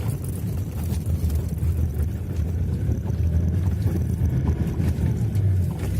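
Toyota Land Cruiser 120's 3.0 D-4D four-cylinder turbodiesel running at low revs while the vehicle crawls downhill off-road: a steady low rumble.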